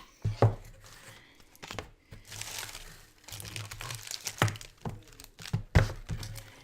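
Paper and plastic packaging crinkling and rustling as items are pulled out of a box, with several sharp knocks and taps, the loudest about half a second in and near the end.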